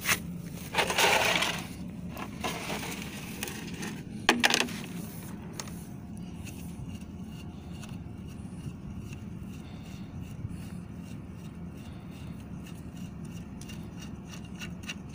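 Hand-work noises on an outboard motor's lower unit: a brief rustle about a second in and a sharp metallic clink about four seconds in, over a steady low drone.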